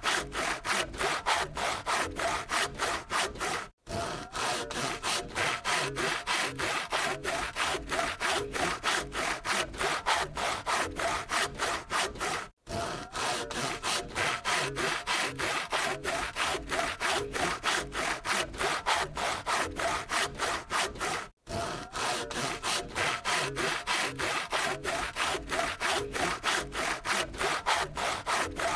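Hand saw cutting in quick, even back-and-forth strokes, each stroke a rasping scrape. The sawing stops for a split second three times, about every nine seconds.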